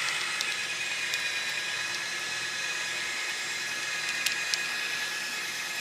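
Drill running steadily in forward, spinning a Lint Eater rotary brush on its rods inside a dryer vent duct as the brush is drawn out. A steady high whine with a hiss, and two faint clicks near the end.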